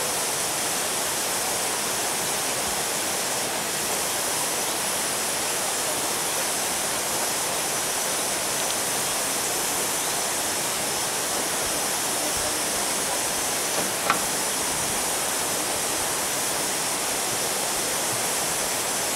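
Steady hiss of steam from a Kerr Stuart 0-4-2 saddle tank steam locomotive standing in steam, with a single sharp click about fourteen seconds in.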